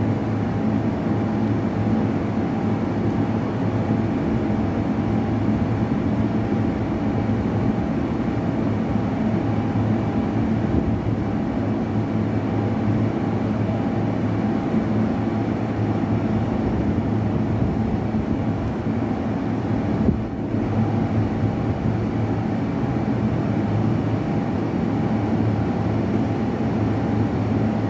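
Steady low drone of a running motor, unchanging in pitch, with a brief dip about two-thirds of the way through.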